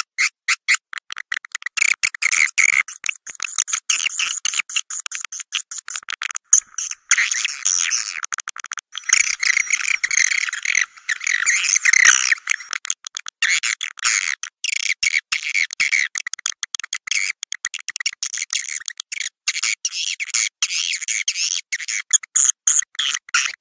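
Swiftlets chattering: a dense, rapid twittering of high chirps and clicks, in places a continuous mass of calls and elsewhere quick separate chirps. It is a swiftlet call recording of the kind played to lure swiftlets to a swiftlet house and get them to roost there.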